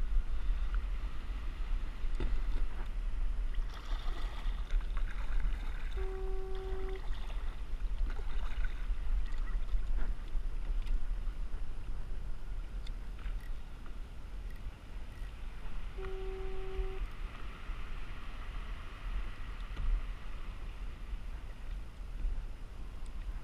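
Water sloshing and paddling sounds around a kayak over a steady low rumble. Two identical one-second tones sound about ten seconds apart.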